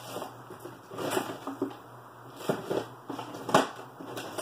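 Scattered clicks and light knocks of objects being handled on a tabletop, the sharpest about three and a half seconds in, over a low steady room hum.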